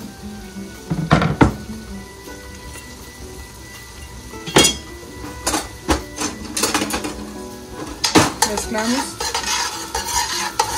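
Chopped onion and garlic sizzling in hot oil in a stainless steel pot, with a few sharp knocks. From about eight seconds in, a metal spoon stirs and scrapes against the pot.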